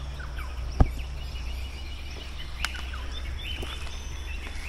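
Rainforest birds calling: many short chirps and whistles over a steady low rumble, with a single sharp knock about a second in.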